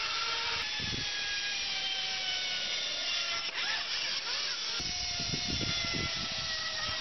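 Zipline trolley pulleys whirring along the steel cable: a steady high whine of several tones that slowly falls in pitch, with low buffeting in the second half.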